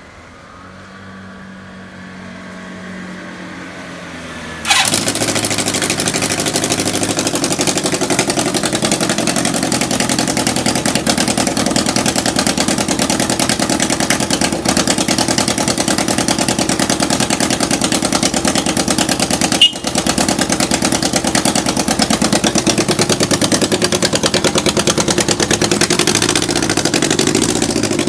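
Kawasaki Z550GP air-cooled inline-four engine starting on the electric starter, catching suddenly about five seconds in after a quieter rising whir, then idling steadily with an even pulse: it starts first time and idles smoothly with no abnormal noise. One sharp click about twenty seconds in.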